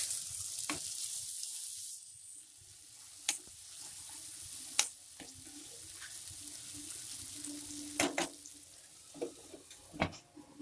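Thick masala gravy sizzling and bubbling in a frying pan, the hiss loudest in the first two seconds after the glass lid is lifted. A steel spatula stirs it, with several sharp clicks of metal knocking on the pan and lid.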